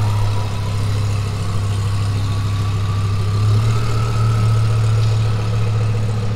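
Twin-turbo Lamborghini Huracan's V10 engine idling steadily as the car creeps forward.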